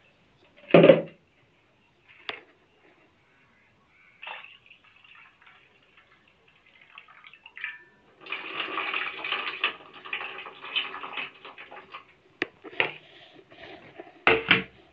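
Water being poured and splashed in a bowl while vegetables are washed, a steady splashing for about four seconds past the middle. There is one loud knock about a second in and a few sharp knocks near the end.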